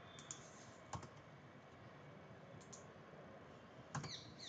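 Faint, scattered clicks of a computer mouse and keyboard, a handful spread over a few seconds with the loudest near the end, over a low steady hiss.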